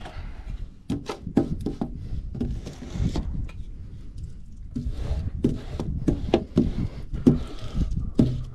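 A quick, irregular run of knocks and taps as a window squeegee is worked against the glass and frame from a ladder.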